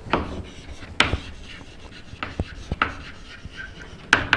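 Chalk writing on a chalkboard: a run of sharp taps and short scratchy strokes as letters are written, with the loudest taps about a second in and near the end.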